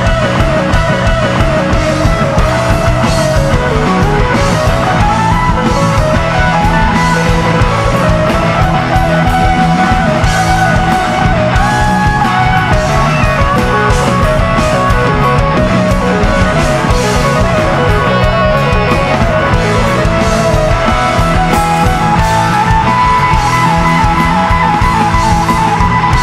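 Live rock band playing an instrumental jam: a winding electric guitar lead line over drums, bass and keyboards.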